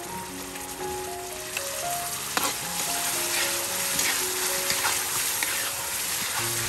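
Coconut milk boiling and sizzling in a wok over a gas flame as salt and sugar are stirred in, the spatula scraping and knocking against the pan, with one sharp knock about two and a half seconds in. Soft background music plays over it.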